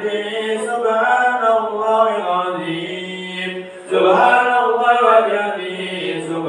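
Men's voices chanting Islamic dhikr a cappella, a melodic recitation over a steady low pitch, with a brief break about four seconds in.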